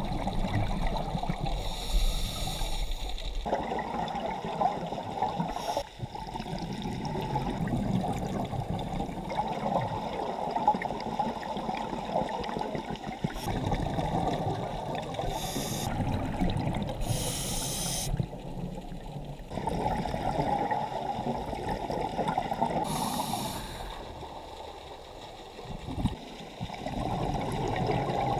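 A scuba diver breathing through a regulator, heard underwater through the camera housing: a steady muffled rush, with short hissing bursts of exhaled bubbles a few seconds apart, four of them.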